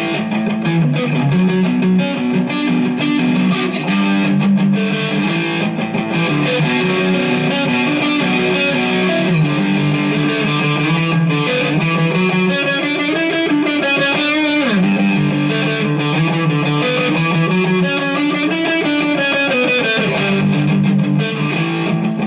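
Electric guitar played through a Zoom G5 multi-effects pedal into a Line 6 combo amp, with Tube Screamer-style overdrive, distortion and delay. It plays held notes and chords with string bends and vibrato, and one note slides down about two-thirds of the way through.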